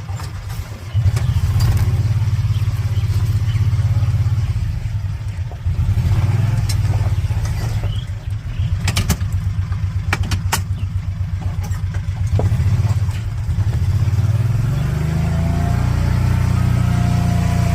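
A vehicle driving, its engine running under a heavy rumble of wind on the microphone, with a few sharp knocks about halfway through.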